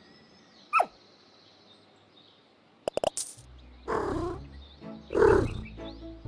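A short falling whistle about a second in, a few sharp clicks near the middle, then two loud roar-like growls, the second the louder, over music with a steady low bass.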